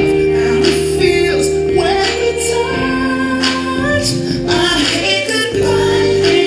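A song playing: a female voice singing over held chords that change twice.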